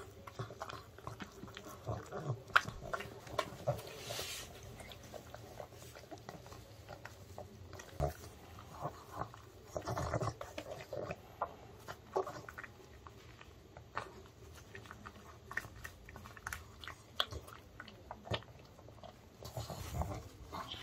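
A pug chewing and licking pieces of homemade dog-safe chicken from a hand: irregular wet smacks, licks and small crunches, close up.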